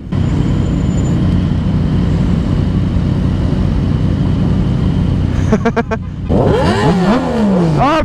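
Several sport motorcycles idling at a standstill with a steady low rumble. Near the end an engine is revved, its pitch rising and falling several times, so loud that it draws a remark.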